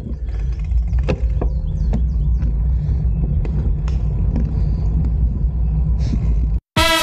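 Steady low rumble of wind and road noise on the microphone while riding, with a few light clicks. It cuts off suddenly near the end, and swing music with brass starts.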